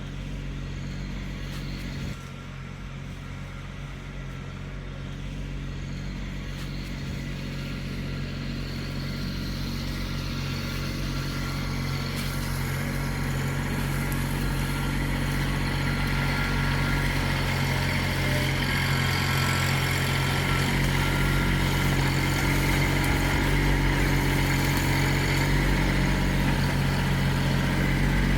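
Kubota LX2610 compact tractor's diesel engine running steadily, slowly growing louder.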